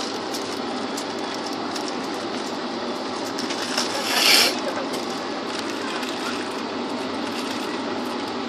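Passenger train running on the rails, heard from inside a coach: a steady rushing rumble with scattered clicks of the wheels over the rail joints. About four seconds in, a loud hiss lasts about half a second.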